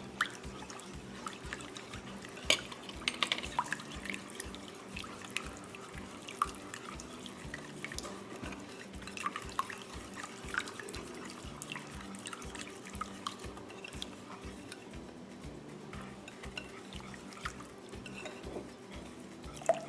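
A wire whisk stirring a thick, creamy liquid mixture in a casserole dish: irregular wet squishing and dripping, with light clicks and taps of the whisk against the dish, one of the sharpest about two and a half seconds in.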